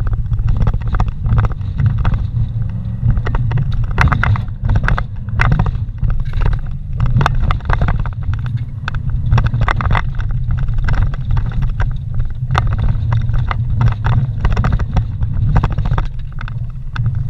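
Vehicle driving slowly over a rough, rutted dirt road, heard from inside the cab: a steady low engine and road rumble with frequent irregular knocks and rattles as it jolts over the bumps.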